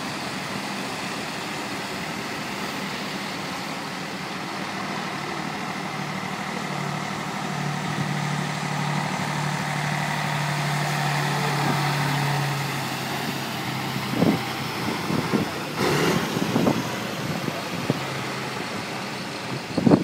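Tow truck engines running in a slow procession; one truck's engine hum grows louder past the middle and then fades. A few short sharp sounds come in the last few seconds.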